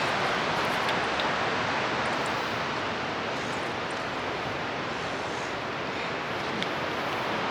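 Steady rushing water, an even unbroken noise like a waterfall or rapids, with a few faint ticks over it.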